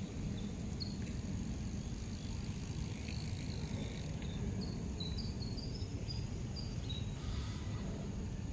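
Steady low outdoor rumble of city-riverside ambience, with a string of short high chirps scattered through the middle.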